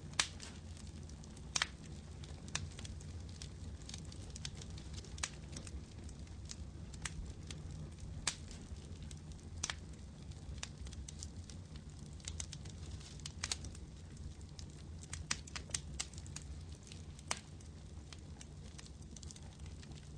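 Firewood fire crackling, with irregular sharp pops, some in quick clusters, over a low steady rumble.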